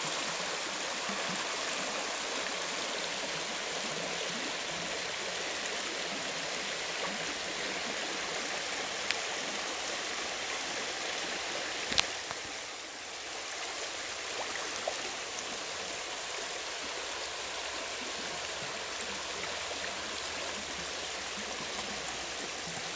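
Shallow creek water running over gravel riffles, a steady rushing. Two sharp clicks cut through it, one about a third of the way in and a louder one just past halfway.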